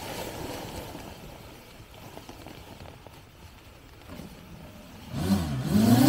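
Small folding quadcopter drone's motors starting up about five seconds in, then spinning up with a whine that rises in pitch and grows loud. Before that there is only a low steady rushing noise.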